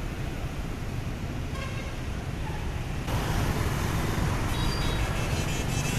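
Motorbike and scooter traffic at a city intersection: many small engines running, with short horn toots, getting louder about halfway through as the traffic moves off.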